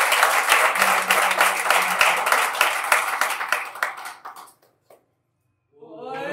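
Audience applauding, the clapping thinning out and fading about four seconds in, followed by a second of silence.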